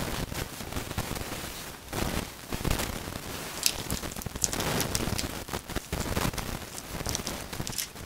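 Crunchy chewing of a firm Nature Valley Sweet and Salty peanut butter granola bar, an irregular crackle of small crunches.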